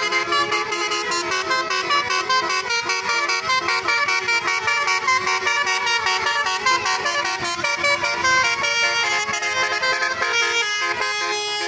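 Telolet bus horns: multi-tone air horns on buses sounding continuously, their notes stepping up and down in quick succession to make a tune.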